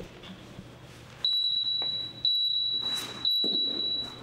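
A GYMNEXT Flex gym interval timer beeping: a loud, high-pitched electronic beep starts about a second in and repeats once a second, three times. It counts down the short switch-over interval between stretches.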